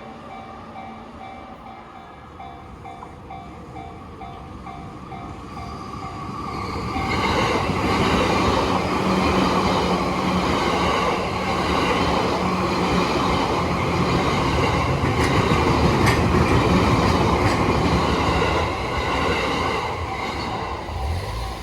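Level crossing warning bell ringing in a rapid, steady repeat. About seven seconds in, a JR East E235-series Yamanote Line train passes, and its wheel and running noise drowns out the bell for about thirteen seconds before fading as the train clears and the bell is heard again.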